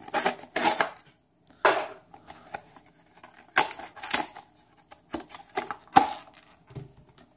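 Yu-Gi-Oh! trading cards and packs being handled on a table: an irregular series of sharp taps, slaps and rustles, the loudest about six seconds in.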